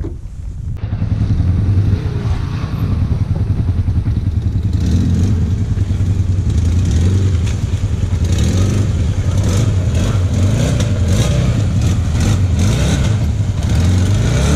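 Quad ATV engine running as it drives slowly along a muddy trail, with some rattling. It starts abruptly about a second in.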